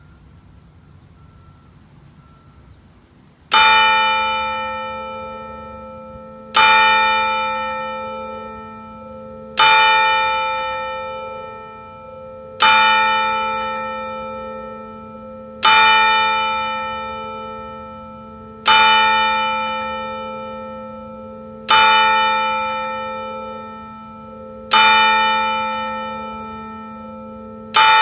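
Tower clock bell striking the hour of eleven: a single bell struck about every three seconds, each stroke ringing out and slowly fading under the next. The first stroke comes about three and a half seconds in, after faint background noise, and nine strokes fall in this stretch.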